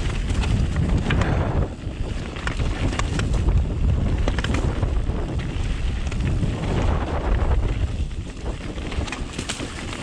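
Strong gusty wind buffeting the microphone with a heavy low rumble, over the scattered knocks and clatter of a mountain bike descending rough, rocky trail.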